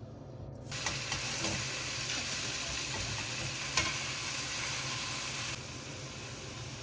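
Food frying in a hot pan: a sizzle starts suddenly about a second in, with a sharp click or two, and drops to a quieter sizzle near the end.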